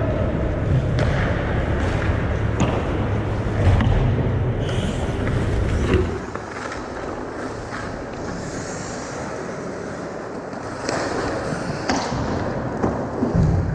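Hockey skates scraping and carving on rink ice, with scattered sharp clacks of sticks and puck. A low rumble under it drops away about six seconds in.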